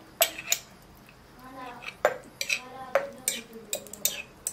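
Metal fork clinking against a glass jar as oily pickled peppers and cucumbers are scooped out into a ceramic bowl: about ten sharp, irregular clinks with a short ring.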